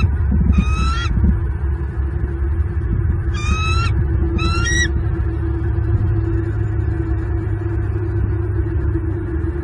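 Bald eagles giving three short, high, chittering calls: one about half a second in, then two close together around three and a half and four and a half seconds in. Under them is a steady low rumble with a faint steady hum.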